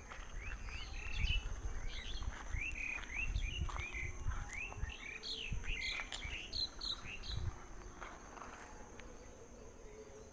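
Small birds chirping: many short, quick calls in rapid succession, thinning out about three quarters of the way through. A steady high-pitched tone runs underneath.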